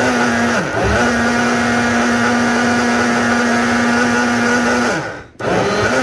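Hamilton Beach 51101BV single-serve blender motor running steadily, blending a green smoothie that is already fully liquid. It stops and restarts just before a second in, and near the end its pitch sinks as it spins down, then it starts again.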